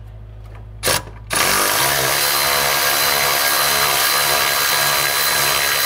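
Cordless electric ratchet driving an M16 triple-square bit, snugging a rear brake caliper mounting bolt in without final torque. A short blip about a second in, then the motor spins up and runs steadily with a thin high whine.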